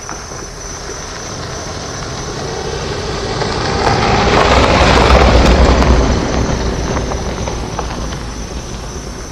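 A passing vehicle, a broad rushing rumble that swells to a peak about five seconds in and then fades away, over steady insect chirring.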